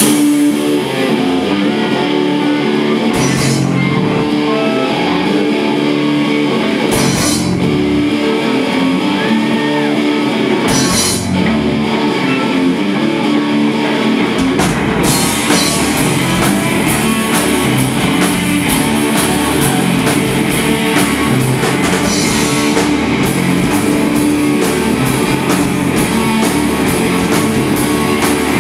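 Live stoner rock band playing loud: a heavy electric guitar riff with a cymbal crash every few seconds, then the full drum kit comes in about halfway through.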